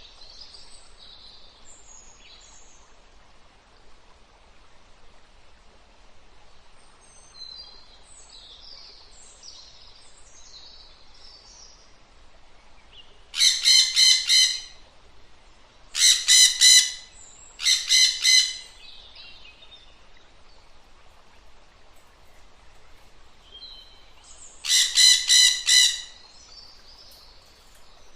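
Wild birds calling: scattered soft chirps, then loud calls in four bouts, each a quick run of four or five repeated notes. Three bouts come close together about halfway through and the fourth near the end.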